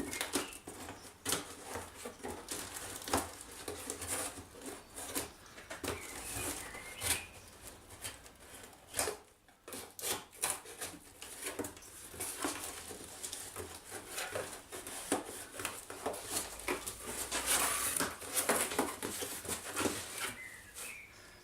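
A parcel being unpacked by hand: irregular rustling and crinkling of packaging with scattered clicks and knocks.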